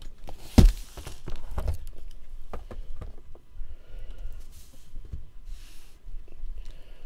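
Handling noise on a tabletop: a sharp knock about half a second in, then scattered light clicks and taps and a couple of brief rustles as things are moved about by hand.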